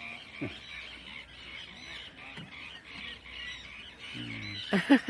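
A chorus of many waterbirds calling steadily. Near the end come a few loud, close honking calls, like a duck quacking.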